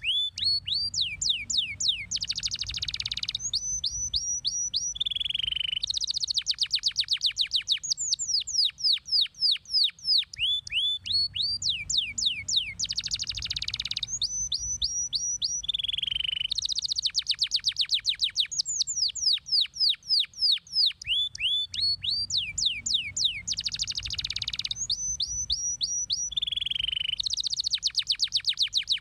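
Domestic canary singing: rapid trills of quick downward-sweeping notes, a short held note and fast chip runs, the same song sequence coming round about every five and a half seconds.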